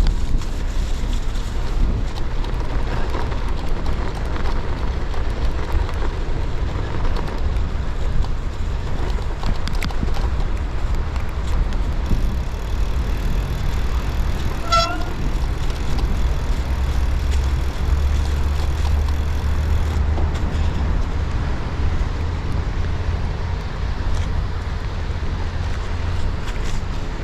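Riding noise from a gravel bike on snowy, icy paths: a steady low rumble of wind on the covered action-camera microphone and tyres rolling over the snow. A single short high tone sounds about halfway through.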